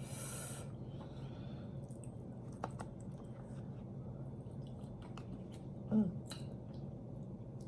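Faint chewing and wet mouth sounds from eating sauce-coated roast chicken, with scattered small clicks and a short breathy hiss at the start. A brief hummed "mm" comes about six seconds in, over a steady low hum.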